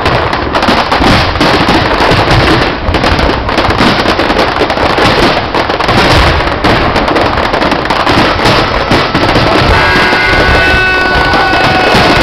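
Harbour fireworks display going off in a dense, rapid barrage of bangs and crackles. Near the end, several steady high tones join in.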